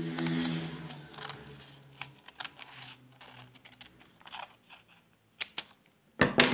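Scissors snipping through a paper pattern piece: a run of short, crisp cuts and paper rustles, with a louder knock and paper handling near the end.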